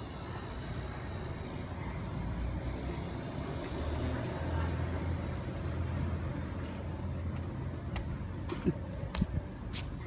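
Low, steady rumble of distant motor traffic, swelling for a few seconds in the middle, with two brief knocks near the end.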